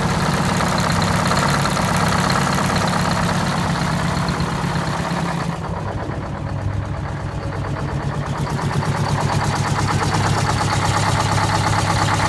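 Detroit Diesel 8V71 two-stroke V8 diesel running at idle with a steady, rapid beat. Its sharper upper sound dulls for a couple of seconds about halfway through, then comes back.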